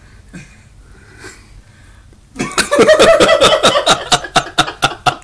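Laughter breaking out about two seconds in: loud, rapid bursts at about four or five a second that carry on to the end.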